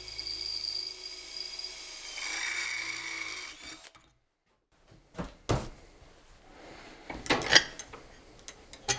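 Makita cordless drill boring through an aluminium plate, the bit grinding as it cuts, stopping abruptly about four seconds in. Then a few sharp clinks and knocks as the drilled aluminium plates are handled.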